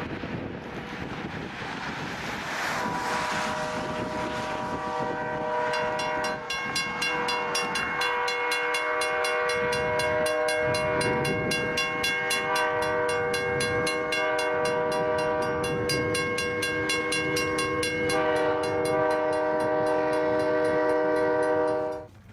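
Locomotive air horn sounding a long multi-note chord as a train passes through snow. A rushing noise underlies it for the first few seconds, then a fast, regular clatter of the train on the rails. The sound cuts off abruptly near the end.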